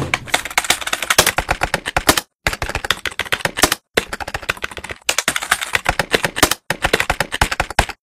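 Rapid, hammering typing on a full-size desktop computer keyboard: a dense clatter of key clicks, broken by three brief dead-silent gaps.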